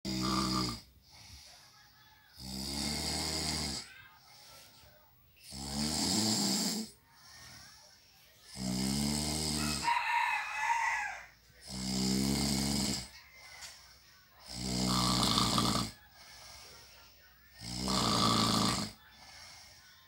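A sleeping person snoring: a loud, rasping snore about every three seconds, seven in all, with quiet gaps between. About halfway through, a short wavering higher-pitched call sounds.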